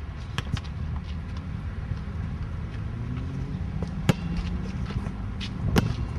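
Wind rumbling on the microphone, with a few sharp knocks; the loudest knocks come about four seconds in and near the end.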